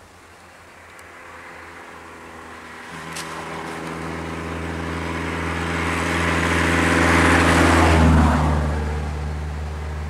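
A motor vehicle on the road comes closer and passes: a steady engine hum with rising tyre and road noise that peaks about eight seconds in, then eases off while the hum carries on.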